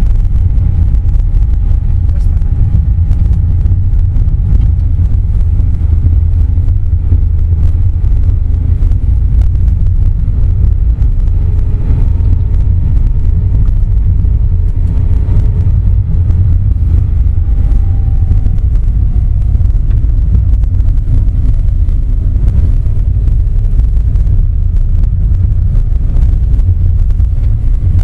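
Car cabin noise while driving: a steady low rumble of engine and tyres on the road, with faint engine tones that drift slightly in pitch.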